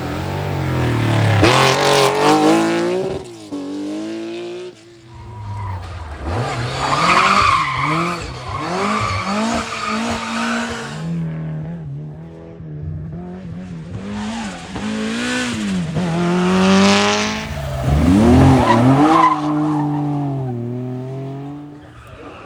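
Historic rally cars driven hard, their engines revving up and falling back again and again through the gears. One spell of hard running comes first, then a short lull about halfway, then another car comes through, revving up high before backing off.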